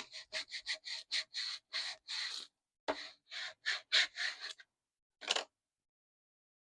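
Squeegee rubbing transfer tape down onto cut vinyl in quick short strokes, about four a second, with one last stroke a little after five seconds.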